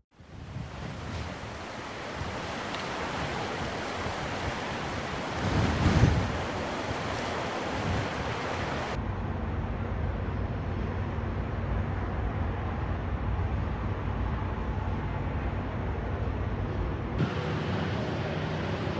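Wind noise on the microphone across several outdoor clips, with a louder rumbling surge about six seconds in. A faint, steady low hum runs under the wind in the later part.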